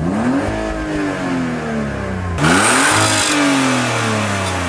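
Car engine revved twice from idle, its pitch climbing quickly and then falling back each time. The second rev, about two and a half seconds in, is louder and carries more exhaust hiss.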